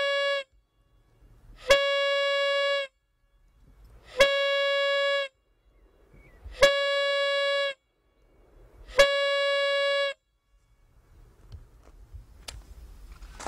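Warning horn sounding steady single-pitched blasts of about a second each, roughly every two and a half seconds: the end of one at the start, then four more. It is the pre-blast warning signal before a detonation. A few faint knocks follow near the end.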